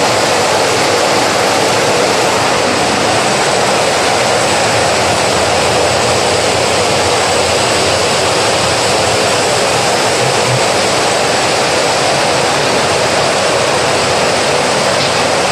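Automatic carton folding and side-pasting machine running steadily: a loud, even mechanical rush with a faint high whine.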